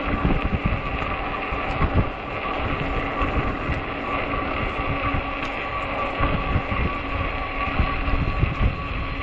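Electric fat-tire bike's hub motor humming steadily under way, with wind buffeting the microphone in low, irregular thumps.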